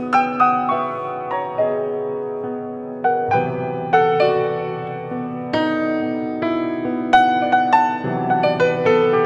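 Piano playing slow, unaccompanied music: single notes and chords struck every half second or so, each ringing on and fading, with a few louder accented chords.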